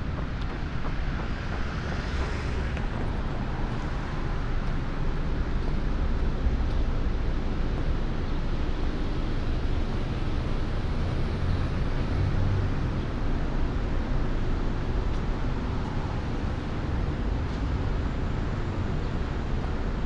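Wind buffeting the microphone: a steady, flickering low rumble with no other sound standing out.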